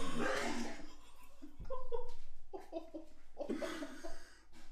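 A person retching and gagging after eating a century egg, with laughter alongside.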